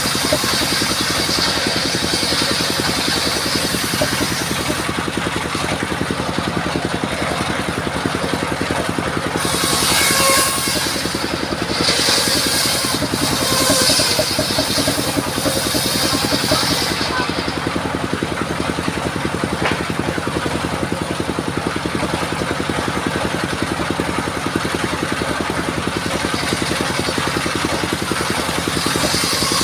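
Engine-driven circular saw mill running steadily while its blade cuts sengon wood. The cutting hiss grows harsher from about a third of the way in and eases a little past halfway.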